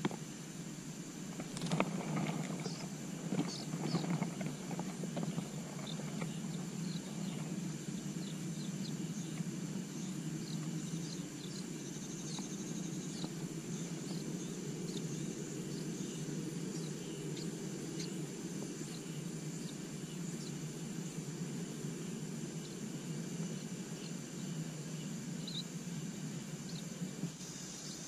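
Rustling and knocks about two seconds in as a parent songbird lands at the nest, then scattered thin, high begging chirps from the nestlings as they are fed. A steady low rumble runs underneath.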